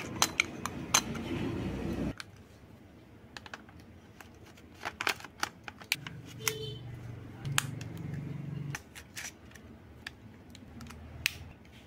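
Small plastic clicks and taps of a Canon EOS M200 camera body being handled: the body cap twisted off, the lens mounted and the battery door opened. There is a low background rumble at times.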